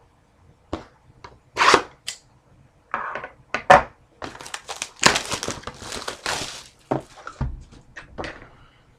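Handling of a sealed trading-card box and its wrapping: a string of sharp knocks and clicks with crinkling and tearing noises, busiest in the second half.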